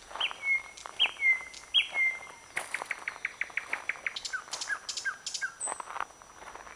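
A thrush nightingale singing. The phrase opens with three drawn-out falling whistles, runs into a fast series of clicking notes, and ends with a few lower notes about six seconds in.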